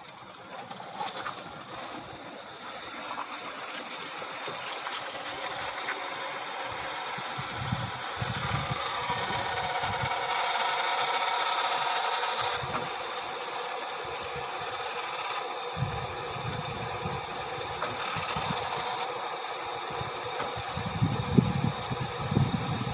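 A motor vehicle passing by, its noise building to a peak about halfway through and then fading, with some low rumbling thumps.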